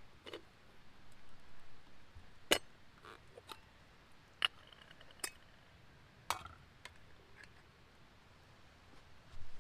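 A few scattered sharp clicks and light knocks over a quiet background, one of them followed by a brief ringing tone.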